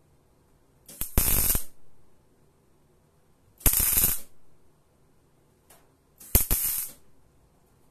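MIG welder laying three short tack welds, each a burst of arc under a second long, about two and a half seconds apart. There is a faint brief blip just before the third.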